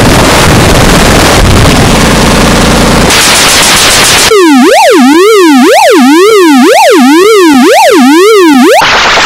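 Extremely loud, harsh digital noise for about four seconds, then a buzzy electronic tone sweeping up and down in a regular zigzag, a little more than once a second, giving way to hiss near the end.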